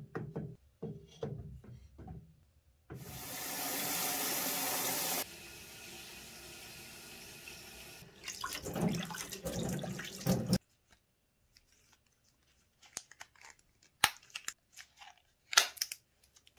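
A few knocks as a whetstone is set into its holder, then water from a sink's hand sprayer runs hard for about two seconds, eases to a lower steady flow, turns splashy, and cuts off suddenly. After it come a few light clicks and rubbing sounds.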